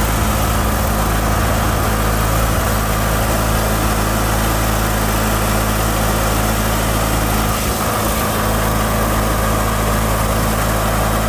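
Murray riding mower's engine running steadily at full throttle as the mower drives along.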